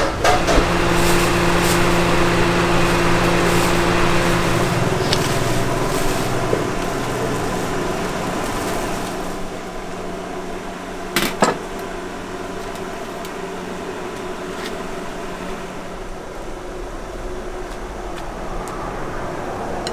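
A steady mechanical hum with a low drone, easing down after about nine seconds into a quieter hiss, with a single sharp clack about eleven seconds in.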